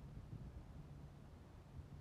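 Near silence: a faint, uneven low rumble of outdoor ambience with a faint steady low hum underneath.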